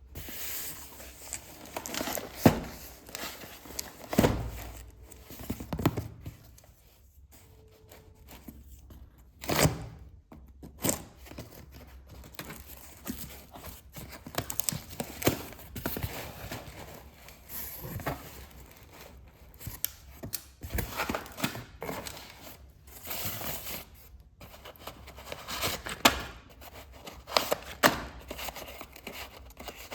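A new box of slate pencils being unpacked: its packaging tearing and crinkling, with irregular knocks and clicks from the handling and a few louder thuds.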